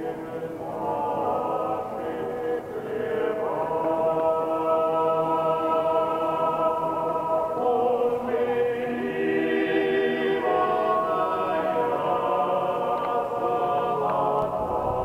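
Unaccompanied choir singing a slow chant in a church, long held chords that change every second or two.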